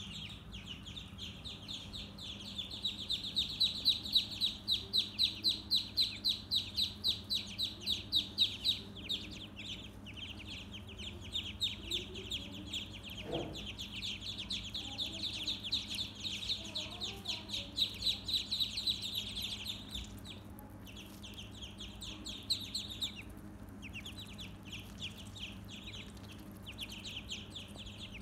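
A group of ducklings peeping nonstop, many rapid high-pitched calls overlapping, loudest in the first third and dropping out briefly twice after the middle.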